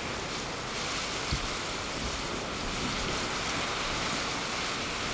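Blizzard wind blowing steadily, an even rushing noise with wind buffeting the microphone, and one brief low thump about a second and a half in.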